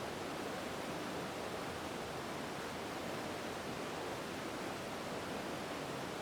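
Steady, even rush of flowing water from a mountain stream.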